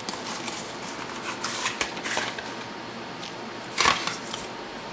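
Handling of a small product box and its packaging: rustling and scattered light clicks and taps, with one sharper knock about four seconds in.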